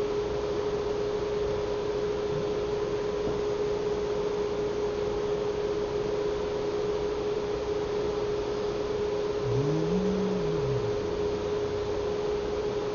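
Steady electrical hum with a single mid-pitched tone over a constant hiss, and a brief low sound that rises and falls in pitch about ten seconds in.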